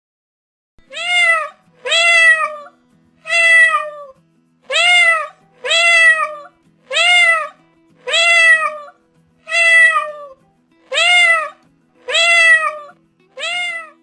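Domestic cat meowing over and over: eleven short, high-pitched meows, each rising then falling in pitch, about one a second.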